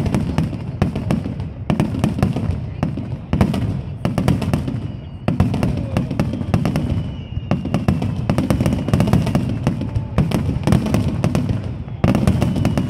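Fireworks display: aerial shells bursting one after another, with a sharp bang every second or two over a continuous low rumble and crackle.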